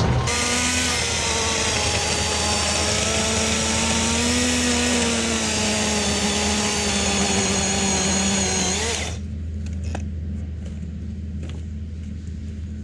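Milwaukee cordless electric pole saw running at speed, a steady motor whine with its pitch wavering slightly, that stops abruptly about nine seconds in; a low steady hum carries on underneath.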